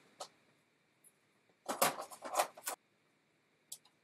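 Light clicks and clatter of an iPhone and a test screen being handled and set down on a workbench. The sounds come as a quick cluster of taps about two seconds in, with a few single clicks before and after.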